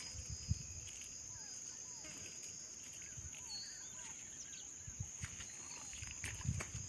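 Steady high-pitched insect drone, with a bird's faint short falling calls repeated over it and a few soft low thumps.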